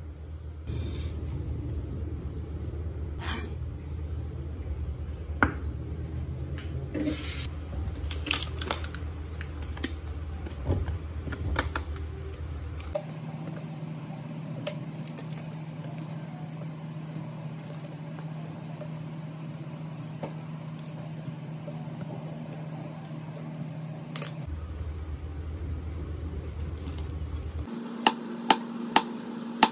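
Kitchen prep on a wooden cutting board over a steady low hum: a knife and fingers scraping and tapping at minced garlic, then button mushrooms being handled in a metal colander. Near the end a chef's knife slices through mushrooms onto the board with sharp knocks, about two a second.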